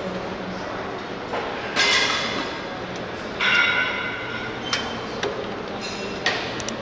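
Metal gym equipment clanking: two loud ringing clanks about a second and a half apart, then a few lighter clicks.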